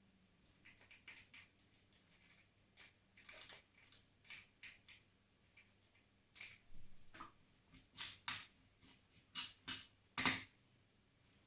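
A series of light, irregular clicks and taps, with the loudest one about ten seconds in.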